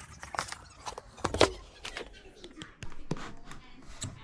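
Cardboard box being handled and turned over by hand: a string of irregular taps, knocks and rustles.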